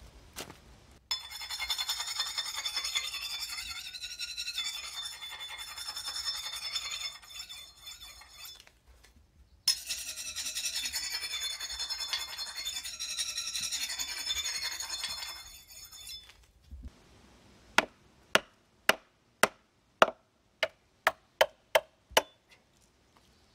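Steady metallic rasping with a high ringing edge in two long runs, one tool worked against another. Then about ten sharp knocks, quickening toward the end, as a mallet drives a steel froe down into a log round to split off shingles.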